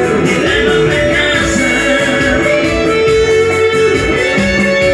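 Live band music: electric guitar and keyboard playing over a steady beat.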